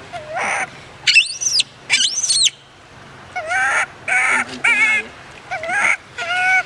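Baby macaque crying in a run of eight short, wavering calls, each about half a second long. The second and third, about a second and two seconds in, are higher, arching squeals.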